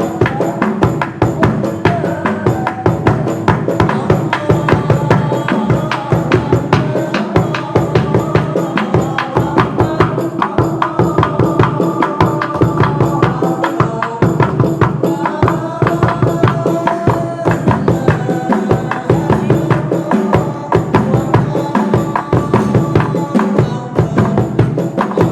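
Music with fast, steady percussion: drums and tambourine-like jingles striking in a dense rhythm, with a melodic line above them.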